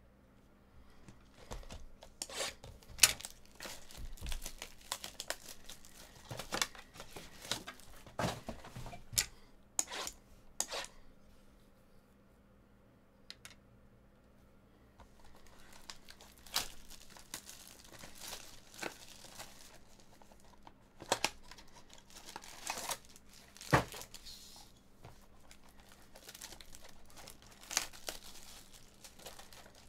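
Plastic shrink wrap crinkling and tearing as it is pulled off sealed trading-card boxes, among sharp clicks and knocks from the cardboard boxes being handled.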